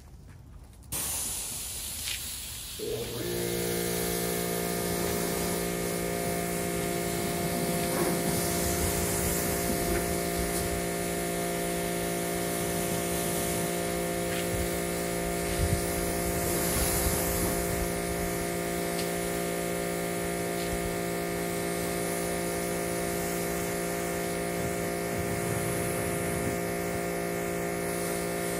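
Giraffe Tools wall-mounted electric pressure washer spraying through its wand. Water hisses from about a second in, and the motor kicks in about three seconds in: its built-in delayed start waits for water to flow before the pump runs. The motor then runs with a steady hum under the spray.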